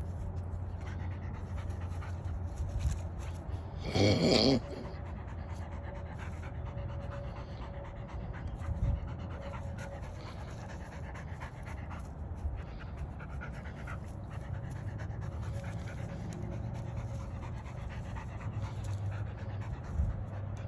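Airedale terrier panting hard as she worries a snake in the grass, with one short, louder wavering cry about four seconds in.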